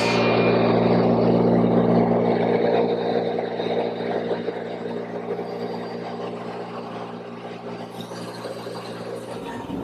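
Electric woodworking power tool running steadily while cutting notches in maple, with a constant motor hum and cutting noise. The noise eases after about three seconds.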